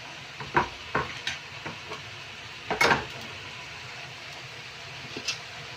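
Stir-fried vegetables sizzling steadily in a pan while a utensil stirs them, knocking and scraping against the pan a few times, loudest about three seconds in.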